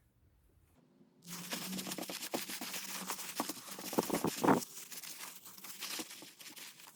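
Handling noise from carburetor reassembly: a crinkling rustle full of small clicks that starts about a second in and fades near the end.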